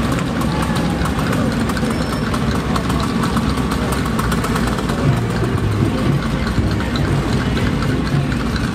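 Engines of several slow-moving vehicles idling and running at low speed, among them small go-karts, a side-by-side and a hot rod, with a pickup truck pulling in close. A steady low rumble runs throughout, a little heavier about halfway through.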